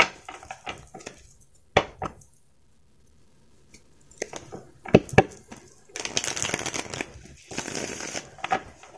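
A tarot deck being shuffled by hand: scattered sharp snaps and taps of the cards, then a longer fluttering riffle of cards lasting about two and a half seconds near the end.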